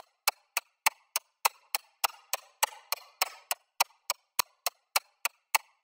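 Sharp, evenly spaced ticks, about three and a half a second, keeping a steady tempo as the percussion intro of a dance track.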